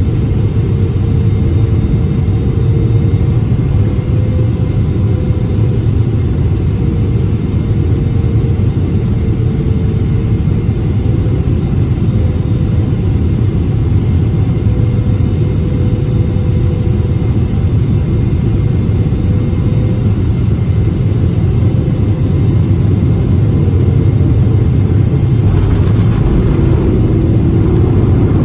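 Cabin noise of a Boeing 777-300ER rolling along the runway after landing: a steady low rumble of wheels and engines with a hum that wavers slightly in pitch. About 25 seconds in, the sound shifts and grows a little louder.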